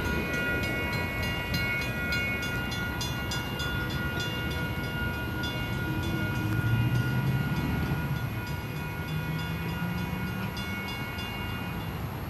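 Commuter rail train moving away down the line: steady high-pitched ringing tones over a run of rail clicks that thin out near the end, with a low engine hum rising in the second half.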